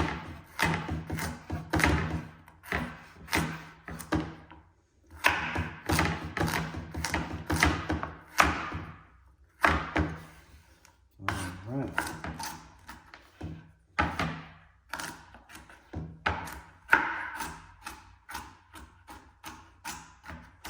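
Knife chopping a carrot on a cutting board: quick runs of sharp knocks, several a second, broken by brief pauses.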